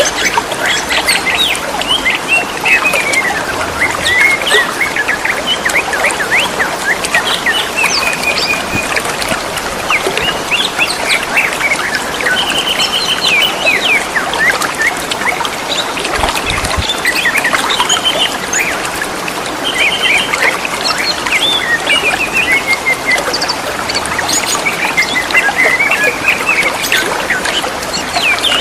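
Green leafbirds (cucak ijo) singing and answering one another with a continual run of chirps, whistled phrases and trills, over a steady rush of trickling water.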